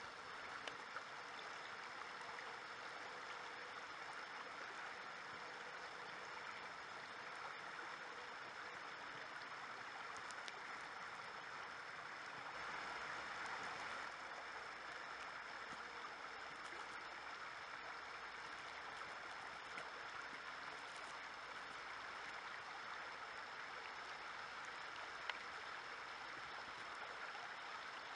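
A river flowing: a steady, even rush of moving water.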